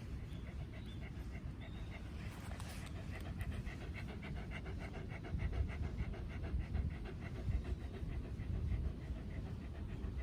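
A Shiba Inu panting in quick, even breaths, over a steady low rumble.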